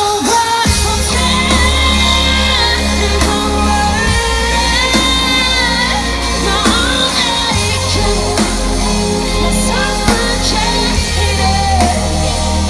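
Live band performing a pop-rock song with a woman singing lead over heavy bass and synths, recorded loud from the crowd.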